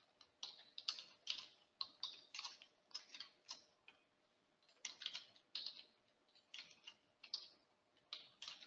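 Faint computer keyboard typing: short clusters of key presses, with brief pauses near the middle.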